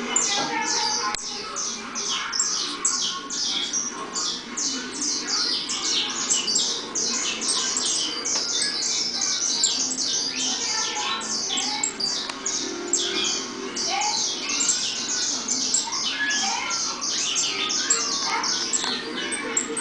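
Many saffron finches (canário-da-terra) chirping at once: a dense, unbroken chatter of short, high calls overlapping one another.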